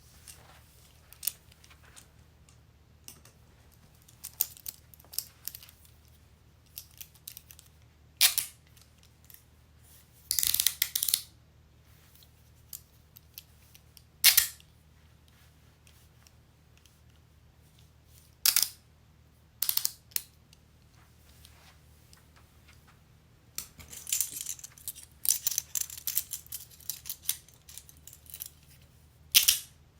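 Metal handcuffs being handled: scattered sharp metallic clicks and short rattles, with quiet gaps between them. The clicks come thicker and faster over the last several seconds.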